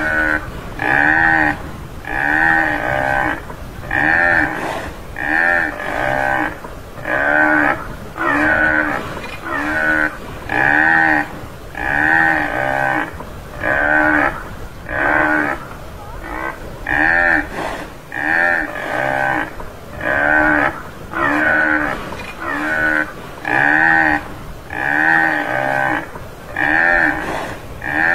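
Tamaraw (Mindoro dwarf buffalo) calling: short lowing calls repeated about once a second, each rising and falling in pitch.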